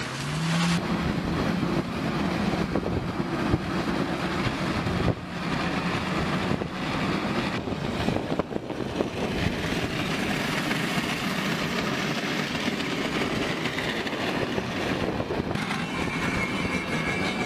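Metal part of a car dragging and scraping along the asphalt, a continuous harsh grinding as it throws sparks. A steady low engine drone runs under it for the first few seconds.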